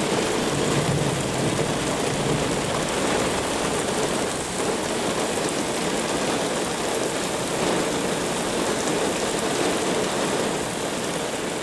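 Heavy thunderstorm rain pouring steadily onto wet pavement, a continuous even hiss.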